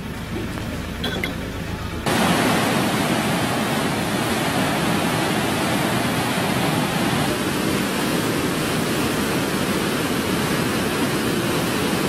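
Turbulent floodwater rushing over a road, a loud, steady rush of water that cuts in suddenly about two seconds in after a quieter first two seconds.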